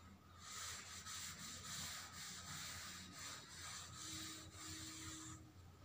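A cloth wiping chalk writing off a chalkboard: a faint scrubbing rasp in repeated back-and-forth strokes that stops about five seconds in.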